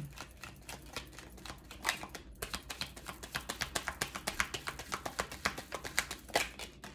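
A deck of round tarot cards being shuffled by hand: light card clicks and flicks, sparse at first, then a rapid run of many clicks a second from about two and a half seconds in until near the end.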